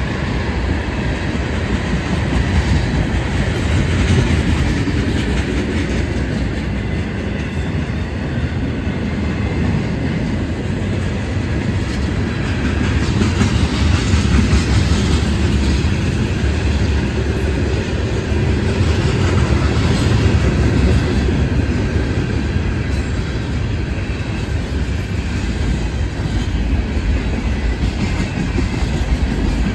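Freight train's tank cars and refrigerated boxcars rolling past close by: a loud, steady noise of steel wheels running on the rails, deepest in the low end and swelling slightly now and then.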